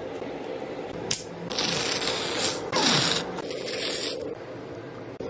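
Skin being torn off a raw tongue sole by hand: three ripping, tearing strokes, each up to about a second long, after a single click about a second in.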